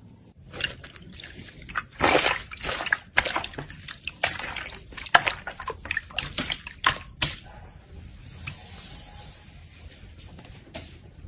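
Slime being squeezed and poked by hand: irregular wet squelches and sharp crackling pops, busiest from about two seconds in until about seven seconds, then a softer, quieter rustle.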